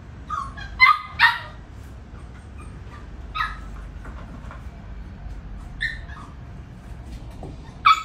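Border collie puppies yapping: short high-pitched yaps, a loud pair close together about a second in, then single yaps a couple of seconds apart, with another loud one at the end.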